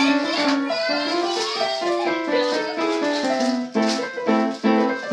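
Upright piano being played: a melody over held lower notes, then about four seconds in, loud repeated chords at roughly three a second.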